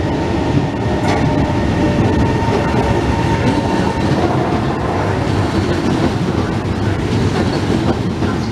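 Trenitalia ETR 425 Jazz (Alstom Coradia Meridian) electric multiple unit pulling into the platform: a steady rumble of wheels on rails with some clickety-clack. A thin steady whine runs over it and fades out about four seconds in.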